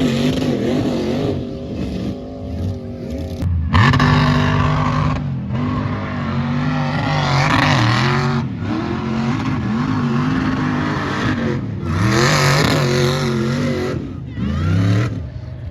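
Big 4x4 engines revving hard, their pitch climbing and falling again and again as the vehicles race. The sound breaks off briefly several times.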